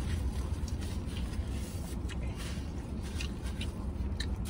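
A man chewing a mouthful of soft taco, with small wet mouth clicks and the rustle of the paper wrapper in his hands, over a low steady hum inside a truck cab.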